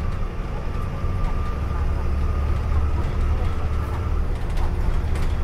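Dennis Trident double-decker bus on the move, heard from the upper deck: the diesel engine and drivetrain give a steady low rumble. A thin steady whine rides over it for about four seconds and stops near the end.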